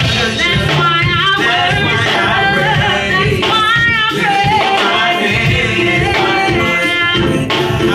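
Singing with a band's accompaniment: a loud, sustained vocal melody that bends and wavers in pitch over a steady instrumental backing.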